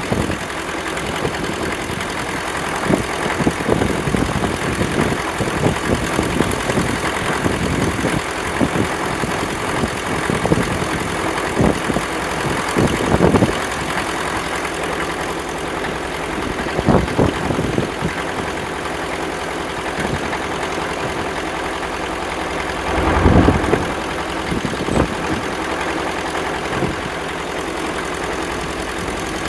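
Engine running steadily at idle, with a few brief louder surges, the biggest about 23 seconds in.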